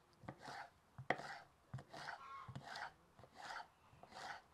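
Kitchen knife dicing fresh nopal cactus paddles on a wooden cutting board: a series of crisp cuts through the juicy pad, each ending in a knock of the blade on the wood, about one every half second to second.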